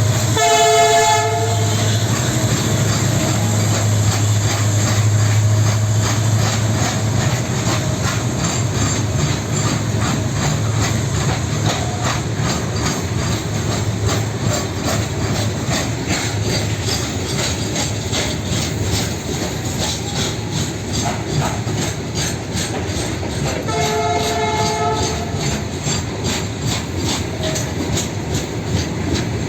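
WDG4 diesel-electric locomotive with its 16-cylinder two-stroke EMD engine humming under load as it hauls a heavy freight train, its horn sounding twice, about a second each, at the start and about 24 seconds in. After about 12 seconds the engine hum fades and the wagon wheels' rhythmic clickety-clack over the rail joints takes over.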